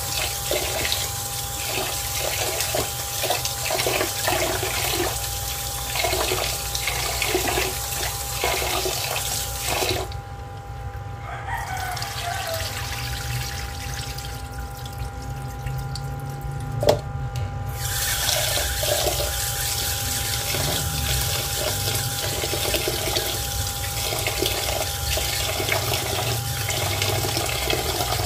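Tap water running into a stainless-steel pot of rice while the grains are swished and rubbed by hand. The running water stops for about seven seconds while the cloudy rinse water is poured off. A single sharp knock comes just before the water starts again.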